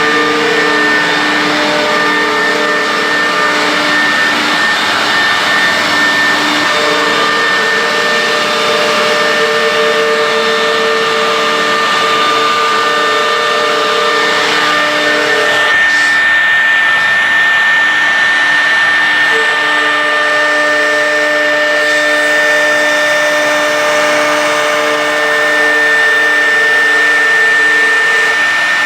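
CNC wood router running: a steady high spindle whine over loud rushing noise, with lower motor tones that start and stop as the machine moves.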